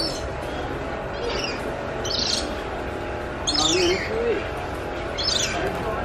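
A bird giving short, sharp, high calls about five times, each call falling in pitch, over a steady low background noise.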